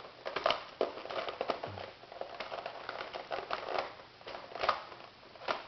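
Irregular plastic clicks, taps and rustles of hands handling a remote-control toy fire truck, fitting its battery pack back into the underside, which is proving tricky.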